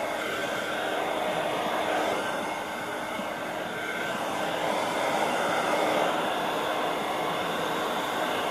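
Elgin sewing machine with its covers off, running steadily: its exposed mechanism gives a continuous mechanical rattle and hum.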